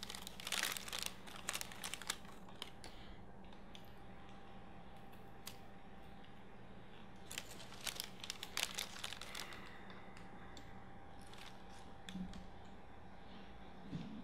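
Pages of a hardback book being handled and turned, paper rustling and crackling in two spells, about a second in and again around seven to nine seconds in, over a steady low hum.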